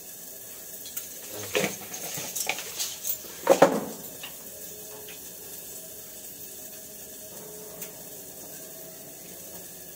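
A small steel bowl and other metal dishes clatter at a stainless-steel kitchen sink. There are several knocks and a ringing clang about three and a half seconds in, and after that only a faint steady wash like water running from the tap.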